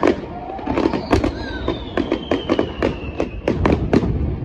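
Aerial fireworks display: a rapid run of bangs and crackling shell bursts, with a long whistle falling slowly in pitch from about one second in until past three seconds.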